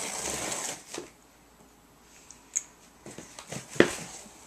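Cardboard shipping box being opened by hand: a rustling scrape of the flaps for about the first second, then a few light clicks and one sharp cardboard knock near the end.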